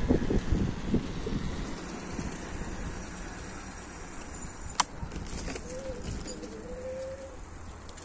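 Bicycle riding on asphalt, with wind buffeting the phone's microphone and tyre rumble that dies down about five seconds in. A single sharp click comes just before the noise drops.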